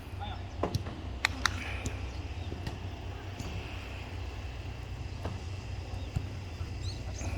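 Ambient sound of an amateur football match: a steady low rumble with faint distant voices, and a few short sharp knocks about a second in.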